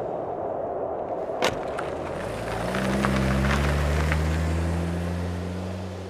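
Toyota Camry's engine pulling away and driving off, its low hum swelling and then fading, after a single sharp click about a second and a half in.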